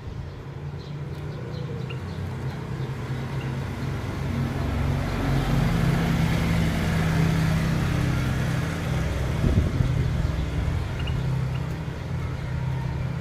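A motor vehicle's engine running nearby, swelling to its loudest about halfway through and easing off again, with a few faint bird chirps over it.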